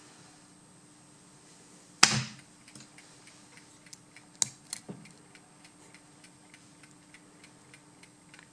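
Lock picking on a brass Abus 65/30 padlock with spool pins: small clicks and scrapes of a hook pick and tension wrench in the keyway, with one sharper click about two seconds in and a few more around four and a half seconds. Faint regular ticking runs underneath.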